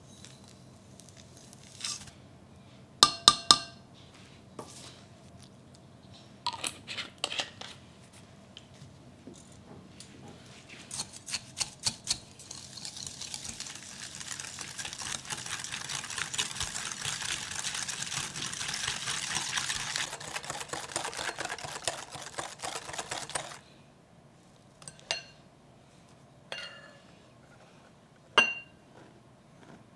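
Kitchen utensils clinking against bowls, a few sharp ringing taps at a time. In the middle comes about ten seconds of fast, continuous mixing in a bowl, then a few more clinks near the end.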